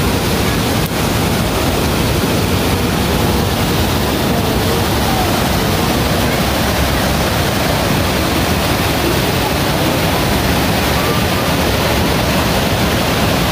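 Fast-flowing river rushing over rocks and low cascades: a steady, loud rush of water.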